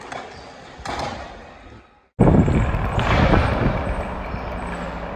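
Skateboard wheels rolling on smooth concrete, with one sharp clack of the board about a second in, fading out. After a sudden cut, a loud, steady, deep rushing noise follows.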